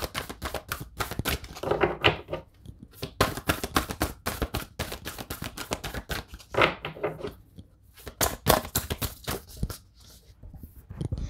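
A deck of oracle cards being shuffled by hand: a quick, uneven run of papery card clicks that thins out near the end.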